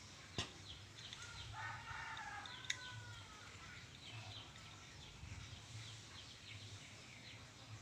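A rooster crowing once, faintly, starting about one and a half seconds in and trailing off in a falling tail, with small birds chirping faintly throughout. Two sharp clicks cut through, the loudest just under half a second in and a fainter one near the end of the crow.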